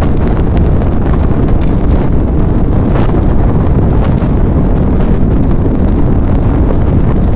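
Fire sound effect: a large blaze burning with a deep, steady rumble and scattered small crackles.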